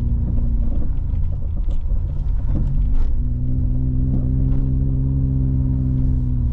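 Car engine and road rumble heard from inside the cabin while driving up a road. The engine note is steady, goes uneven between about half a second and three seconds in with a few light knocks, then settles steady again.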